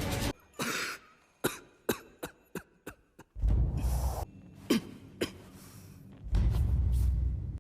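A young man coughing over and over in short, harsh, irregular coughs: an anime character's acted cough. A low rumble swells up twice underneath, about three and a half seconds in and again near the end.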